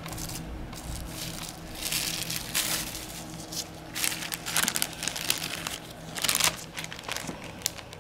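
Plastic cling wrap and a zip-top plastic bag crinkling as gloved hands handle them, in several short, irregular spells.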